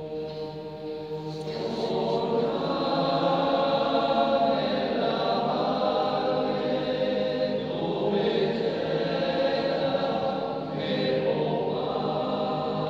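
A choir singing in sustained chords, swelling louder about two seconds in, with short breaks between phrases.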